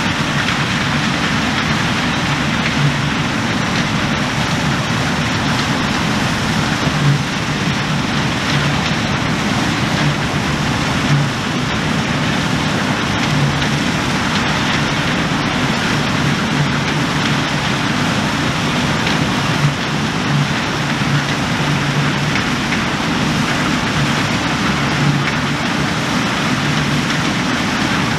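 New Holland CR10.90 combine harvester running under load while cutting and threshing oilseed rape: a steady engine drone with a low hum under an even hiss.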